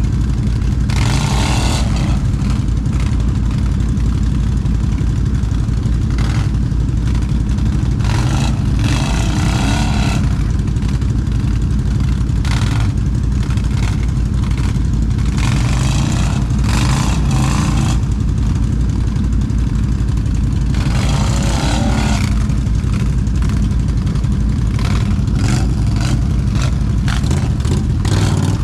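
Can-Am ATV engine running steadily under way, with several one- to two-second bursts of rushing noise over it.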